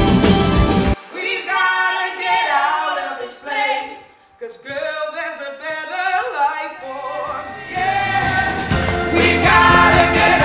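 Loud band music cuts off about a second in, and a small group of women's voices sings in harmony with nothing under it; a few seconds from the end, bass and backing music come back in under the singing.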